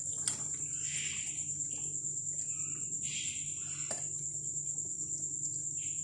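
White sauce simmering in a pan, with soft occasional bubbling and a small knock about four seconds in, under a steady high-pitched whine.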